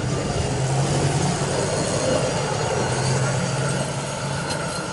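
Hi-rail pickup truck riding the rails past, its engine running with a steady low drone over the rumble of its wheels on the track.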